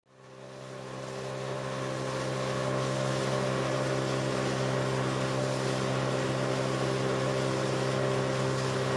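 Small boat's outboard motor running steadily underway, a constant drone over a hiss of wind and water, fading in over the first two seconds.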